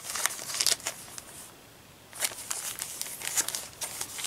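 Plastic packet of an emergency poncho crinkling as it is handled, in two spells with a short pause about a second and a half in.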